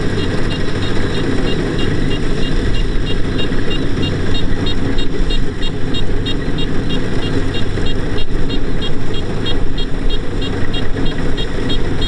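Kubota DC-70 Plus rice combine harvester's diesel engine running steadily under load while it cuts rice. A fast, regular high-pitched ticking, about three or four a second, runs over the engine noise.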